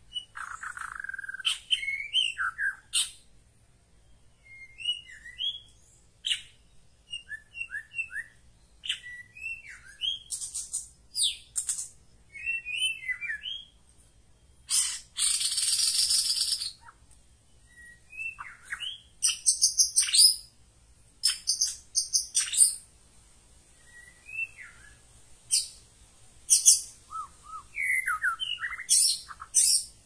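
Songbird singing a varied run of short whistled phrases, chirps and trills, with a harsh rasping call lasting about two seconds midway.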